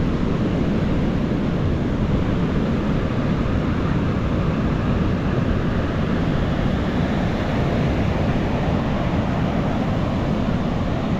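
Ocean surf: waves breaking on a beach in a steady, continuous rush.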